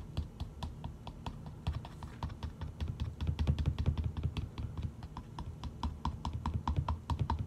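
Plastic scoop digging and scraping in a tub of energy-drink powder: a quick run of small clicks and scratches, about five a second, over a low rustle of handling.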